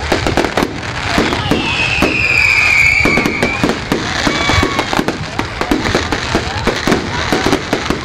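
Fireworks going off in quick succession, sharp bangs and crackles throughout, with a whistling firework sliding down in pitch about two seconds in.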